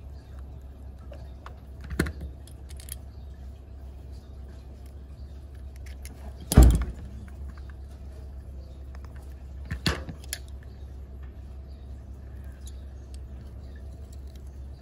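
Handling of a hot glue gun and a small plastic toy shell: scattered light clicks and three sharp knocks, the loudest about six and a half seconds in, over a steady low hum.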